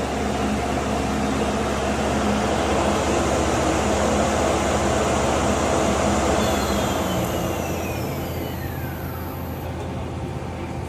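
2005 Okuma L370 CNC lathe running under power, a steady machine noise with a low hum. Over the second half a whine falls steadily in pitch.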